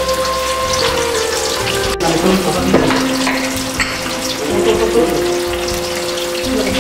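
Whole cabrilla deep-frying in a pan of hot oil, the oil bubbling and sizzling steadily around the fish. Background music with long held notes plays over it.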